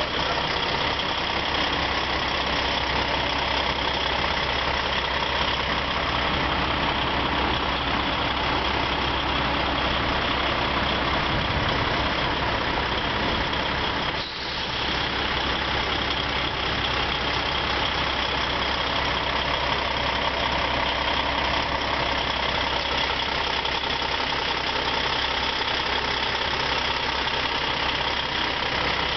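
Heavy trucks' diesel engines idling steadily, with a brief drop about halfway through.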